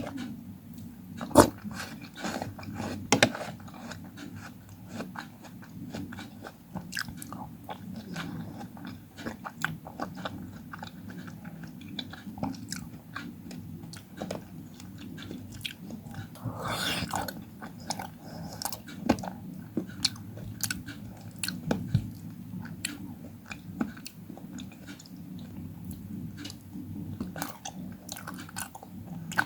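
Close-miked eating: a person biting into and chewing fruit, with wet crunching and many small sharp clicks throughout. There are louder bites about one and a half and three seconds in, and a longer noisy chewing sound around the middle.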